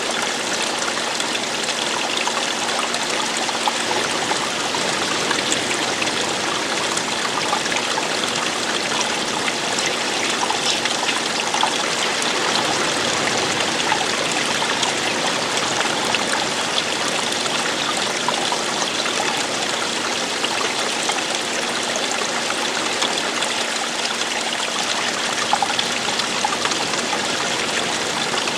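Running water: a stream flowing and splashing over rocks in a steady rush with small trickling splashes, without let-up.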